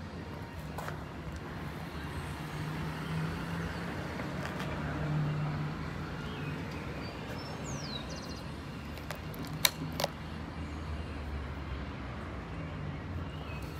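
Steady low outdoor hum, with a brief bird chirp and two sharp clicks about ten seconds in.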